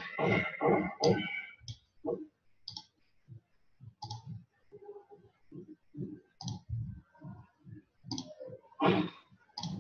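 Computer mouse clicking and its scroll wheel turning: a rapid run of clicks in the first second or so, then scattered single clicks, with a louder cluster near the end.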